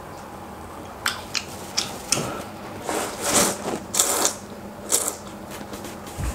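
A person slurping rice noodles from a bowl of soup: a few sharp wet mouth clicks, then three loud slurps about three, four and five seconds in.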